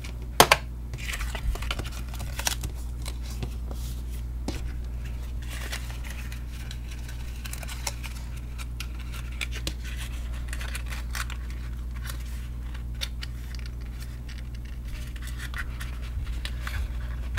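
Hands folding and pressing a small cardstock box together: scattered paper rustling, scraping and light clicks, with a sharper click about half a second in.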